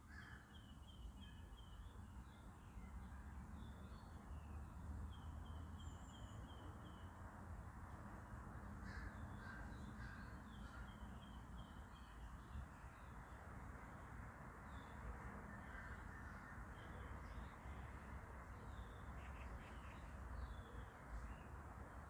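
Faint birds calling in a wooded park: several runs of short, quickly repeated high chirps, and a few louder, harsher calls about nine seconds in, over a steady low background rumble.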